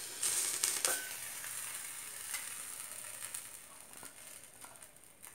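Wheat-flour and carrot dosa batter sizzling in oil in a nonstick pan, the hiss fading gradually, with a short metallic clink about a second in.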